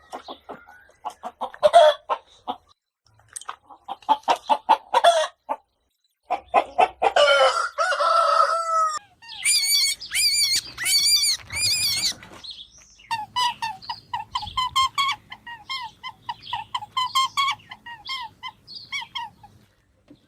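A sequence of animal calls in separate groups: short bursts at first, a longer held call a little before the middle, a run of fast high notes, then a long series of evenly repeated short notes.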